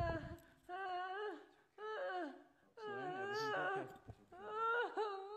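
A woman whimpering and moaning as she cries in distress during a medical episode: several drawn-out, wavering moans with short breaks between them.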